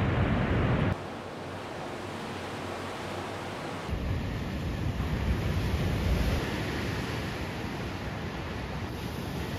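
Sea surf breaking and washing over a rocky shore, with wind rumbling on the microphone. The sound drops abruptly about a second in and grows louder again about four seconds in.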